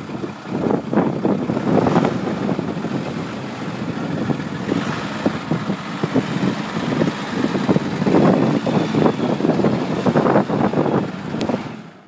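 Diesel engine of a 2006 Ottawa 30 yard spotter truck running as the truck moves, getting louder about eight seconds in, with some wind on the microphone.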